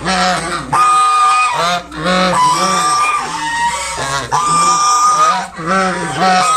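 Mother swan honking over and over, warning calls to keep an intruder away from her cygnets.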